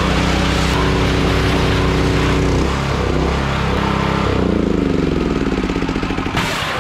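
Gasoline engine and pump of a wheeled hot-water pressure washer running steadily under load while the wand sprays water. About two-thirds of the way through, the engine shuts off and winds down, slowing to a stop. It has been running at full pressure, a bad filter having been what held it back.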